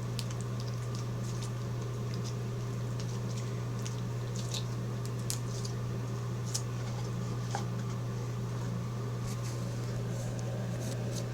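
Slime being squished and worked by hand, making scattered small wet clicks and crackling pops, over a steady low hum.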